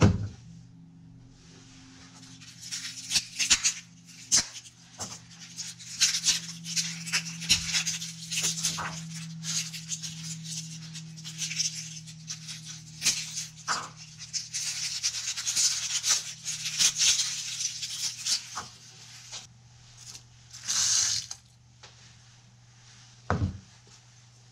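Kitchen prep handling: irregular rustling, scraping and light clicks of ingredients being handled, with a short hiss about three-quarters of the way in and a single low knock near the end.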